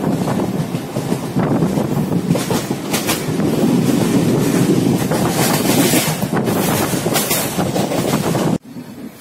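Passenger train running at speed, heard from inside a coach at an open window: a loud wheel-and-rail rumble with rapid clickety-clack over the rail joints. Near the end the loud running cuts off abruptly to a much quieter train sound.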